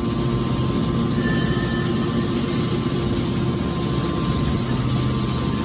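Heavy-duty hydraulic baler running, a steady low machine hum that does not change.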